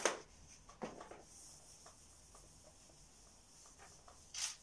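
Marker writing on a whiteboard: faint scratchy strokes, with short sharp sounds at the start, about a second in, and a louder one near the end.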